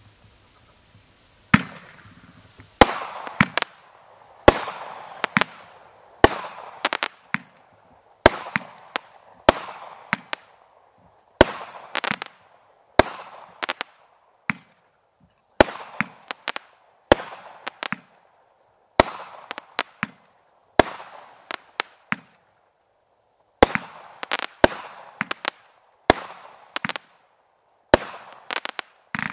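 World-Class Fireworks 'Land of the Free' consumer firework cake firing shot after shot. Starting about a second and a half in, there is a sharp bang roughly every second, each trailing off in a brief crackle.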